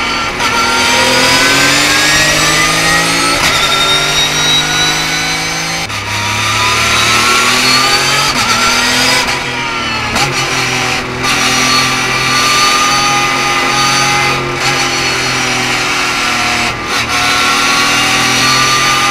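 Porsche 991.2 GT3 Cup's flat-six engine heard from inside the cockpit, pulling through the mid revs. Its pitch rises steadily with each acceleration and drops at several short lifts off the throttle and gear changes.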